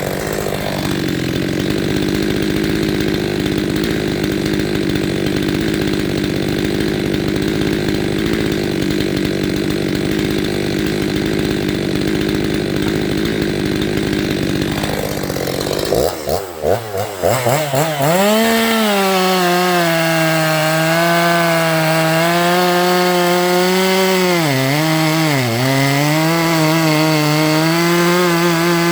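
Stihl MS 363 two-stroke chainsaw running at full throttle while cutting wood. About sixteen seconds in, the engine note stutters and climbs, then holds a high, wavering pitch that sags twice under load.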